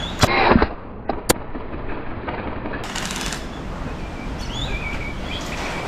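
Dart blasters firing during play: a few sharp snaps and short bursts of clatter in the first half. Birds chirp in the second half.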